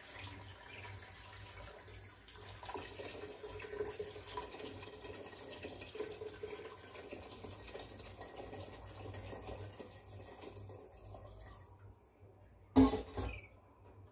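Hot water poured from a metal kettle into an aluminium pressure-cooker pot of sautéed vegetables: a steady splashing pour that stops a few seconds before the end. A single sharp clunk follows.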